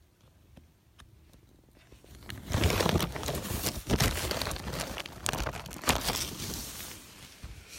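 Crinkling and rustling, like material or gear being handled close to the microphone. It starts about two seconds in and fades near the end.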